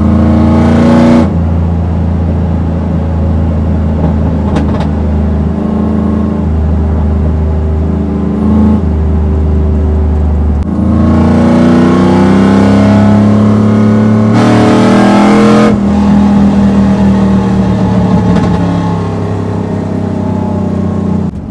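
Cammed LS-family V8 of a single-cab Chevrolet Silverado, heard from inside the cab, running with a steady drone at freeway cruise. About halfway through, the revs climb for several seconds as the truck accelerates, then fall off sharply and settle back to cruising.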